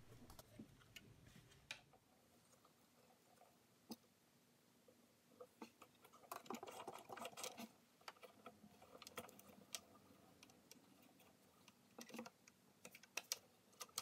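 Faint, scattered clicks and taps of fingers handling a sewing machine's metal presser foot and needle plate, with denser runs of clicks about halfway through and again near the end.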